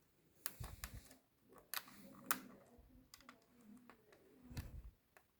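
Faint, irregular sharp clicks and light knocks of hard parts being handled and fitted together, about eight in all, the sharpest a little past two seconds in, with dull thuds under a few of them.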